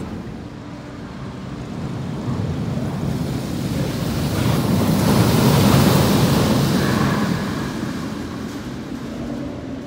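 A rumbling noise that swells to a peak about six seconds in and then fades, like something large passing by.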